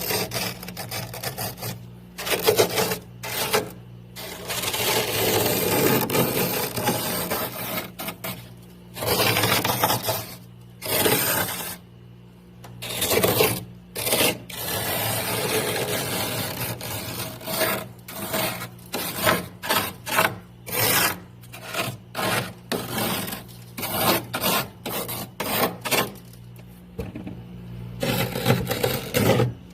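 Thick freezer frost being scraped, a run of rasping strokes, some long and drawn out and others short and quick, with brief pauses between. A faint steady low hum runs underneath.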